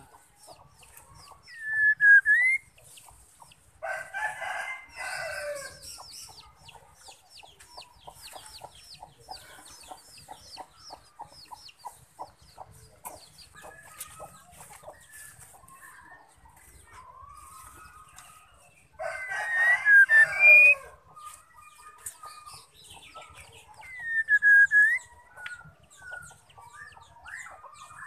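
A white-rumped shama calls with short sweeping whistles and a long run of fast ticking chatter. A rooster crows loudly twice, about 4 and 19 seconds in, each crow ending in a falling note.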